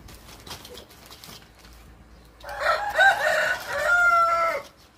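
A rooster crowing once, a call a little over two seconds long beginning about halfway through: a few broken notes, then a long held note that cuts off. Faint clicks and rustling come before it.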